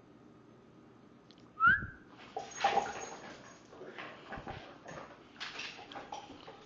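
Australian cattle dog at play with a small toy on a wooden parquet floor. About a second and a half in there is a thump with a short rising squeak, the loudest moment, then scuffling of paws and toy in uneven bursts.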